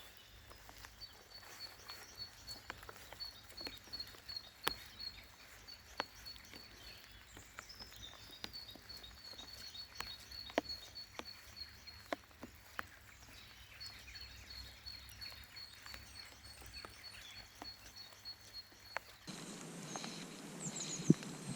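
Outdoor quiet with a small bird calling: long runs of quick, evenly repeated high notes, with scattered light clicks and ticks throughout. Near the end the background noise gets louder.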